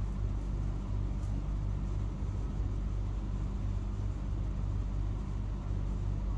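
Steady low hum and rumble of background noise, even in level, with no other sound standing out.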